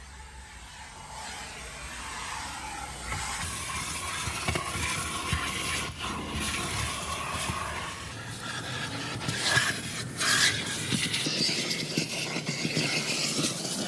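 Car wash vacuum hose sucking at a car's floor carpet, its nozzle rubbing and scraping over the carpet. The noise fades in over the first two seconds, and there are a few louder scrapes around ten seconds in.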